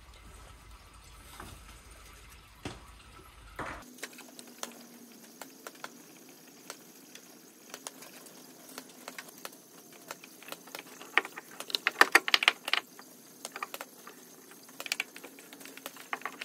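Scattered metallic clicks and clinks of spanners working bolts on an engine, with a dense run of quick clicks in the middle, the loudest part.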